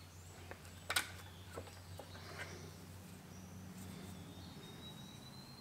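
Faint clicks and taps of a length of No. 9 steel wire being handled and bent by hand at a bench vise, with one sharper click about a second in. A faint thin high tone comes in about three and a half seconds in over a low steady hum.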